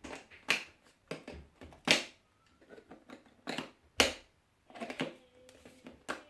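A string of sharp, irregularly spaced hard-plastic clicks and knocks as the Hoover FD22RP cordless vacuum's attachments are handled.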